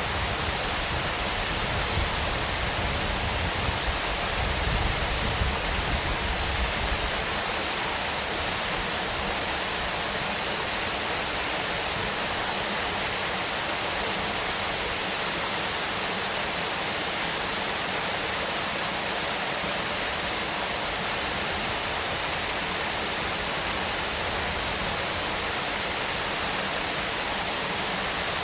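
Waterfall: a steady rush of falling water, with an added low rumble for the first seven seconds or so.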